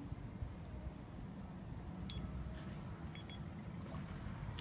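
Small birds calling with short, high chirps every fraction of a second, a few of them brief clear whistles, over a steady low rumble.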